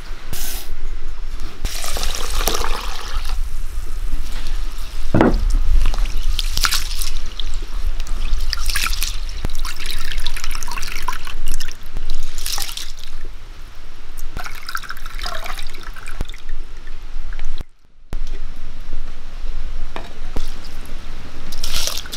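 Raw rice washed by hand in a bowl of water: irregular swishing and dripping as the grains are stirred and handled. Near the start, dry rice grains rustle as they are scooped with a small clay cup.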